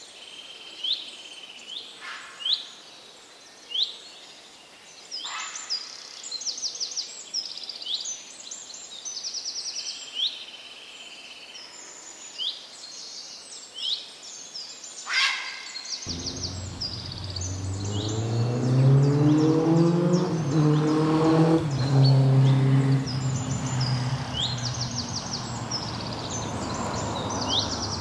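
Small songbirds chirping over and over in short rising calls, with an occasional quick trill. About halfway in, a low mechanical hum with a wavering pitch comes in suddenly and becomes the loudest sound.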